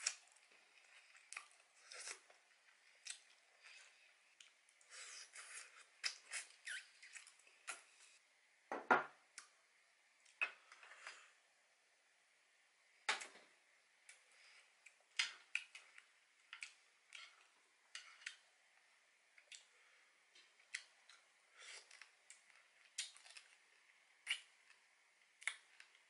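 Close-up eating sounds of a person sucking and chewing soy sauce-marinated raw stone crab from the shell: irregular short wet smacks and clicks, with one longer, louder sound about nine seconds in.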